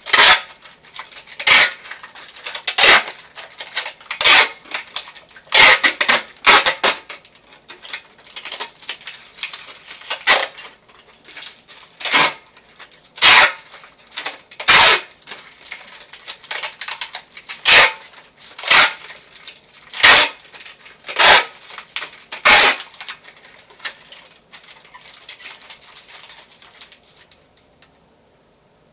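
Adhesive tape being pulled off the roll and torn in short, sharp rips, about one every second or so, repeated well over a dozen times before it stops near the end.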